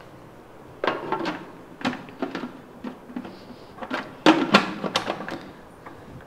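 Clear plastic lid of a Preethi Astra food processor being set onto the bowl over the grating disc and twisted into its lock: a run of short plastic knocks and clicks, the loudest a little past the middle.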